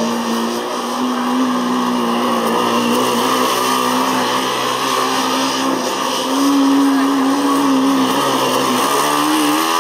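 Formula Student race car's combustion engine running under throttle on a cone course. Its note holds fairly steady, rises about six seconds in, then dips and climbs again near the end as the throttle is worked through the turns.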